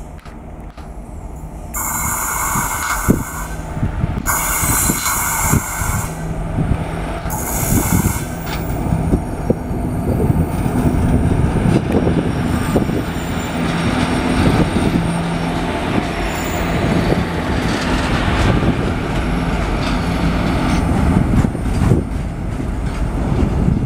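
Indian Railways WAG-7 electric locomotive hauling freight wagons past: three horn blasts in the first eight seconds, the second the longest, then the continuous rumble and clatter of wagon wheels over rail joints with a low steady hum.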